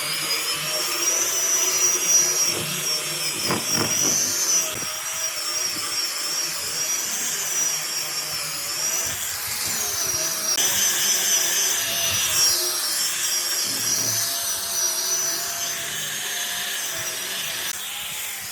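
A high-speed power tool running steadily on wood, its high whine wavering and dipping in pitch as the load on it changes.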